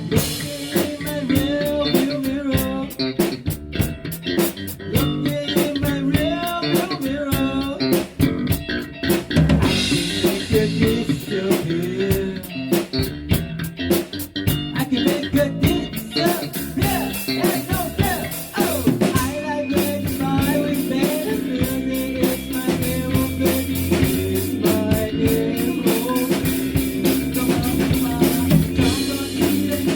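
A band playing an instrumental passage: a drum kit keeping a steady beat under guitar lines, with no singing.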